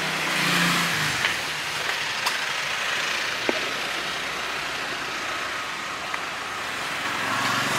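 Steady road traffic noise from passing vehicles, an even rushing hum with a few faint clicks.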